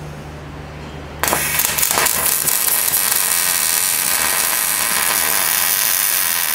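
MIG welding arc from a Miller Millermatic 255 on its auto-set 1/8-inch setting, striking about a second in and then running as a steady, loud crackle while a bead is laid on a steel mud flap bracket.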